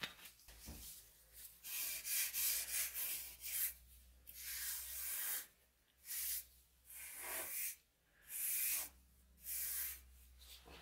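Cloth rubbing a glossy finish into a wooden axe handle: about eight hissing wiping strokes, each half a second to a second long, with short pauses between them.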